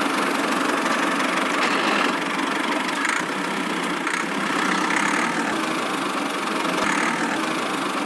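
A miniature model tractor's small motor running steadily, a thin buzzing engine-like sound with no deep rumble.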